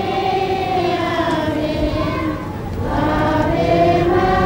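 A group of children singing together as a choir. They sing two long phrases, with a short break between them about halfway through.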